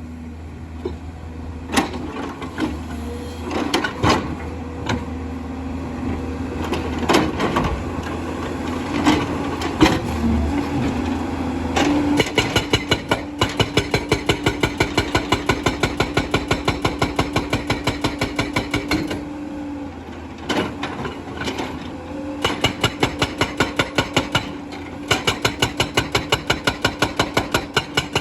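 An excavator's diesel engine running with scattered knocks of stone at first. Partway through, a hydraulic rock breaker starts hammering in rapid, even blows, several a second, breaking stone. It stops twice for a moment and starts again.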